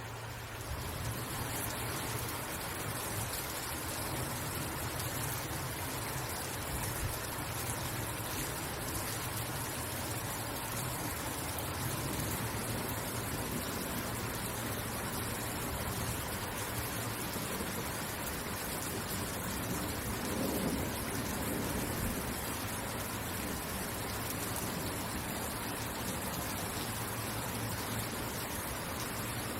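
Steady rain falling, a dense even hiss. A brief low rumble swells up about two-thirds of the way through.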